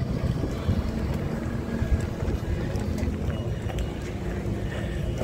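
Wind rumbling on the microphone, with a low steady hum underneath for the first few seconds.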